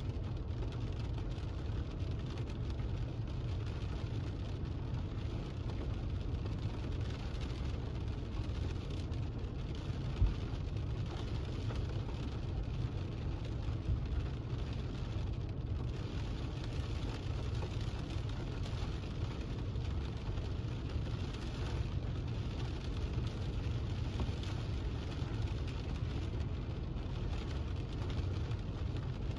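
Steady low rumble and hiss of car noise heard from inside the vehicle during a thunderstorm, with one sharp tap about ten seconds in.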